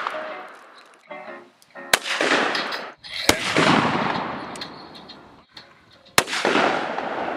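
Three gunshots from a long gun: sharp cracks about two seconds in, a little over a second later, and about three seconds after that, each with a tail that fades away over a second or more.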